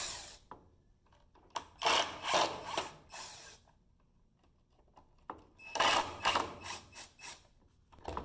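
Hercules 20V cordless impact driver backing screws out of the water-ski binding plates, in two runs of about two seconds each: one starting about a second and a half in, the other about halfway through.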